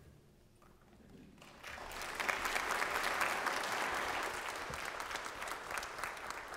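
Church congregation and choir applauding. The clapping starts about a second and a half in, is fullest a couple of seconds later and fades near the end.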